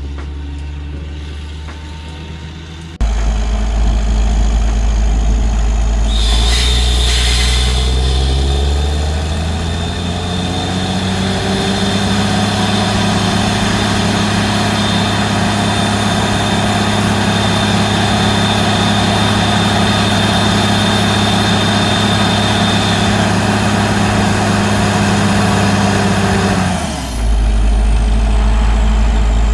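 Borehole drilling rig's engine running hard: it steps up in loudness about three seconds in, revs up with a short rush of noise, then holds a steady, heavy note with a thin high whine over it, changing pitch near the end.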